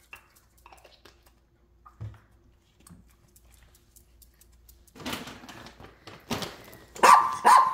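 Faint clicks and a soft knock, then small dogs barking in a quick run of short, sharp barks over the last few seconds, the loudest two near the end.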